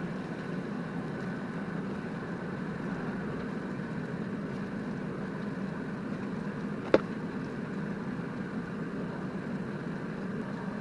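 Salter XL air fryer running as it preheats, its fan giving a steady hum. A single sharp click about seven seconds in.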